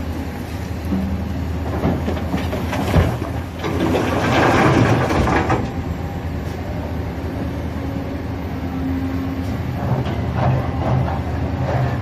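Caterpillar 365CL crawler excavator's large diesel engine running steadily under working load. A louder, noisy stretch of about two seconds comes around four seconds in, and shorter bursts come near the end as the bucket works the rock pile.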